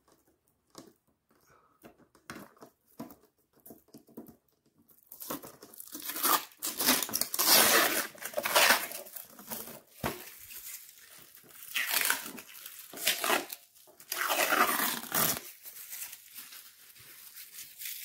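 Clear plastic protective film being peeled off an appliance's plastic top panel, crackling and crinkling. A few small scattered crackles at first, then loud continuous crackling from about five seconds in until near the end, when it dies down.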